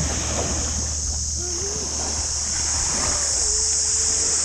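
Shoreline ambience: small waves lapping on a sandy beach under a steady high hiss and low rumble, with faint distant voices.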